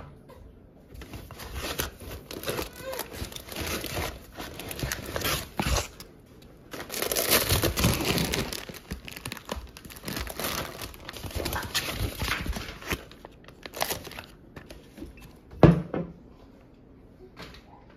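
Plastic food packaging and a reusable shopping bag crinkling and rustling as groceries are handled and unpacked, with one sharp thud near the end as an item is set down.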